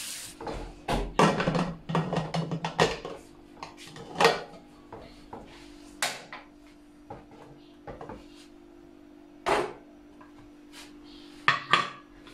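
Clanks and clicks of an aluminium pressure cooker being shut and set on a gas hob: a dense run of metal knocks in the first few seconds, then single knocks every few seconds as the lid and the vent weight are handled. A faint steady hum runs underneath.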